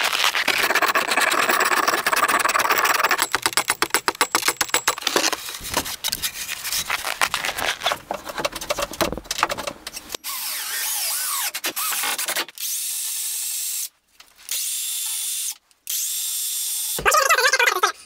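Cordless power tool working wood: first a dense, rapid clicking rattle, then a steady hiss that cuts out briefly twice.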